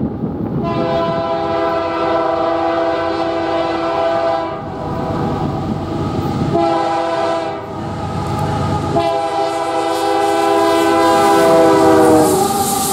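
Diesel freight locomotive's air horn, on a Canadian Pacific GE AC4400CW, sounding three chords: a long blast, a short one, then another long one. The last blast drops in pitch as the locomotive rushes past, over the rumble of the engine and wheels.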